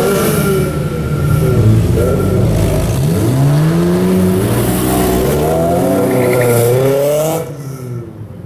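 Sports-car engines revving as the cars pull away slowly one after another, the engine note rising and falling in pitch and climbing steadily through the middle. The sound drops off suddenly near the end, leaving a quieter low engine hum.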